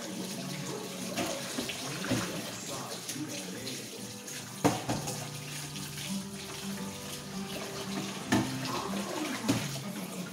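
Kitchen tap running into a stainless steel sink while hands are rubbed and rinsed under the stream, broken by a few sharp knocks, the loudest about halfway through and two more near the end.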